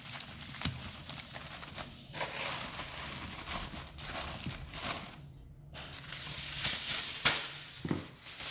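Aluminium foil crinkling and rustling as it is pressed around a pot to seal it, with a brief pause a little past halfway.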